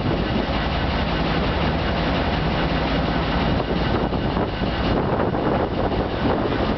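Close-up of an EMD F59PH diesel locomotive's 12-cylinder 710 prime mover running steadily while the train stands at a station platform: a loud, even engine drone with a low hum.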